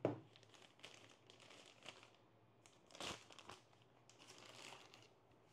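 Faint crinkling and rustling of plastic packaging being handled, with a soft knock at the start and another about three seconds in.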